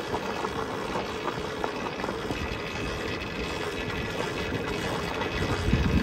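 Volcon Grunt electric dirt bike rolling down a steep gravel track under front brake: tyres crunching and rattling over loose stones, with a faint steady hum underneath. A louder low rumble comes just before the end.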